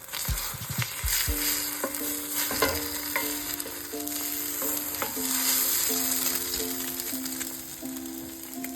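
Food sizzling and crackling in a hot frying pan, with a few low knocks near the start. Background music of slow held notes plays over it from about a second in.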